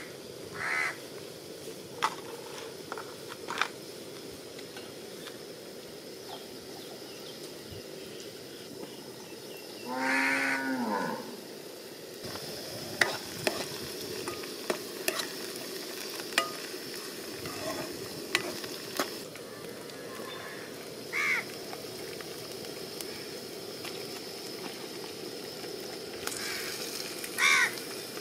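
A cow moos once, one long call about ten seconds in. After that, onions and drumstick pods fry with a steady sizzle in a pan on a gas stove, with the clicks and scrapes of a spatula stirring. Crows caw a few times.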